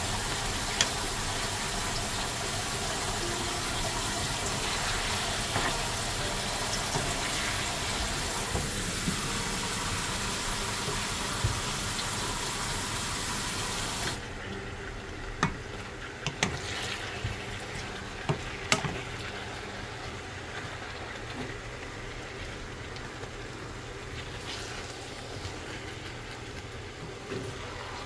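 A wooden spatula stirring and scraping fish cakes and onions in a frying pan, with scattered clicks and knocks against the pan. A steady hiss runs under it and cuts off suddenly about halfway through, after which the spatula's clicks stand out more clearly.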